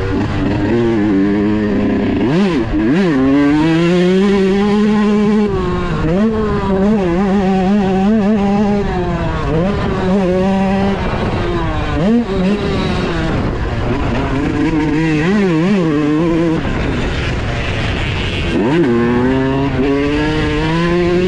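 Yamaha YZ125's single-cylinder two-stroke engine under hard riding, heard from on the bike: the engine note climbs through the gears, drops, and climbs again over and over, with quick throttle blips and chops around the turns.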